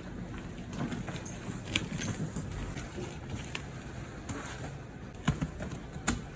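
A few sharp clicks and knocks, the loudest two near the end, over a steady low background noise: handling of the lens case and packing as it is opened.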